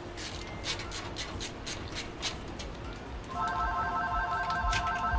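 Light metallic clicks and ticks from a screwdriver working at a PC case's expansion-slot brackets. A little over three seconds in, a louder, rapidly pulsing electronic trill starts, like a telephone ringtone.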